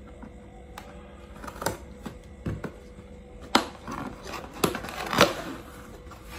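Cardboard and paper gift packaging being handled and opened by hand: scattered rustling with a few sharp clicks and taps, the loudest about three and a half and five seconds in.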